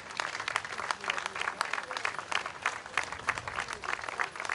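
Audience applauding, with many separate hand claps in an irregular patter.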